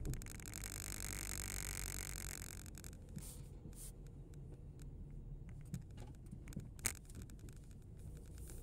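Low rumble of a slow-moving car heard from inside the cabin, with a hiss of road noise that drops away about three seconds in. A few scattered clicks and knocks sound over it, the sharpest one late on.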